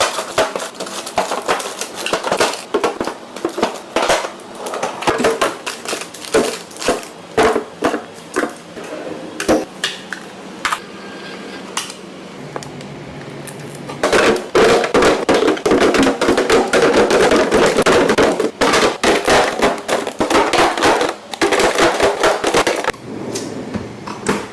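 Kitchenware being handled: a string of sharp clinks and knocks, then about seven seconds of louder, continuous rattling, with a few more knocks near the end.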